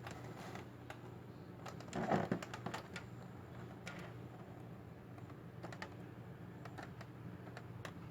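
Light scattered clicks and taps of a cardboard toy-train box being handled and turned, with one louder rustling knock about two seconds in, over a low steady hum.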